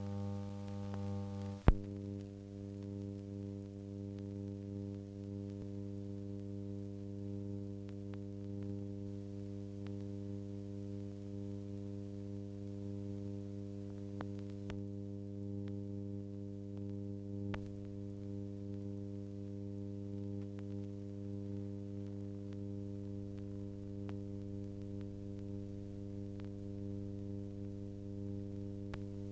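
Steady electrical mains hum with a buzzy string of overtones, the only sound on a silent film's soundtrack. There is one sharp click about two seconds in, and a few faint ticks later.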